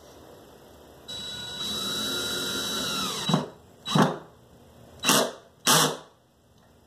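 DeWalt cordless drill running for about two seconds, its whine getting louder once and then dropping in pitch as it winds down, followed by four short, sharp bursts.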